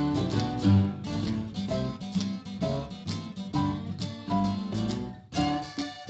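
Background music led by a guitar playing a run of notes, with a brief break about five seconds in.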